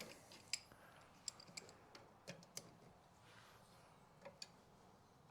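Faint, irregular clicks and light metallic taps from hand tools working on a rear brake caliper as it is bolted back on.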